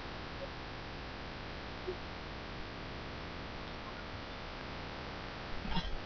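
Steady hiss and hum of room tone through a webcam microphone, with a brief cluster of faint knocks near the end.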